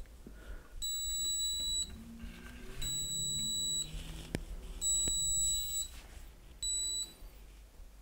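Active piezo buzzer of an Arduino alarm, muffled by tape over it, beeping a steady high tone for about a second roughly every two seconds, four times, the last beep shorter. These are the exit-delay beeps while the alarm arms itself.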